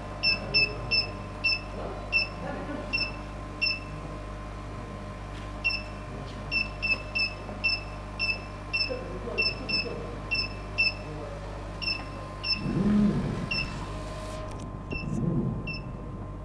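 Short electronic beeps, each the same two-note tone, repeating at uneven spacing like keypad presses, over a steady electrical hum and hiss; the hiss stops about two-thirds of the way in.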